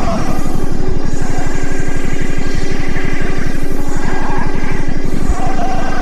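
Loud bass-heavy music from a car sound system with two 12-inch Crack Audio subwoofers, heard from outside the car. The deep subwoofer bass dominates and pulses steadily.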